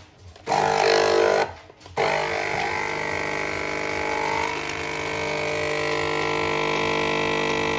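Nespresso capsule coffee machine's pump buzzing as it brews into a cup: a short burst about half a second in, a brief pause, then a steady buzz from about two seconds in.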